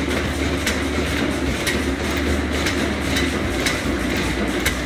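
Vintage stationary engine running at a steady slow pace: a continuous low drone with a sharp tick about twice a second.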